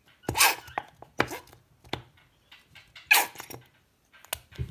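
A squeeze bottle of slime gel pressed upside down, spluttering out gel and air in about six short squirts.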